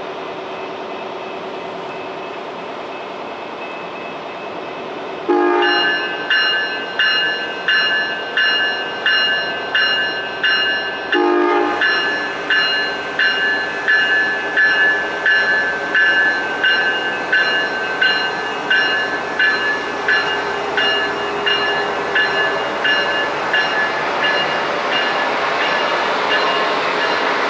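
Siemens Charger SC-44 diesel locomotive idling, then two short horn toots about six seconds apart. Its bell rings steadily, about three strokes every two seconds, and the running noise swells near the end as the train gets under way.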